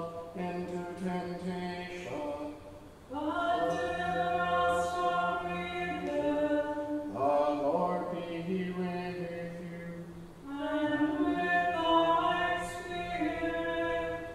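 A choir sings the Vespers office in unaccompanied plainchant. The held, sustained notes come in phrases, with short pauses for breath about three, seven and a half and ten and a half seconds in.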